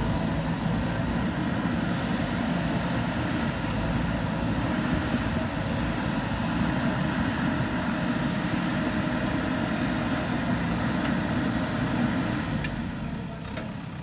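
JCB 3DX backhoe loader's diesel engine running steadily while the machine works loose soil, easing off slightly near the end.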